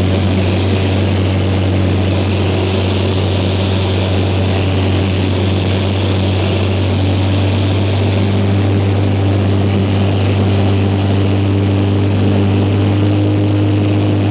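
A light aircraft's engine and propeller running steadily, heard from inside the cabin as one loud, unbroken drone.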